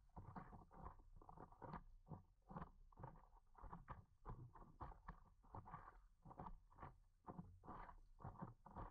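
Faint water slapping and lapping against a paddleboard's hull: many small, irregular splashes a second over a low rumble as the board moves through choppy water.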